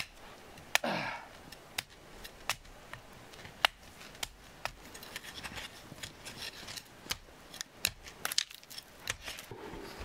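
Twigs of a small sapling being cut and snapped by hand: a run of sharp, irregular clicks, with one short falling squeak about a second in.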